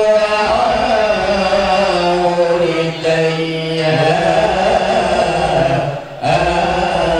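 Marhaban chanting: Arabic verses in praise of the Prophet sung with long, drawn-out melodic notes, with a short breath pause about six seconds in.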